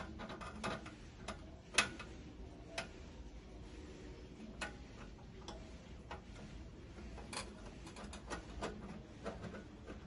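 Screwdriver and pliers clicking and tapping on metal inside the griddle's stainless steel base while a screw at the power cable terminal block is worked. The sharp clicks come at irregular intervals, loudest at the very start and just under two seconds in.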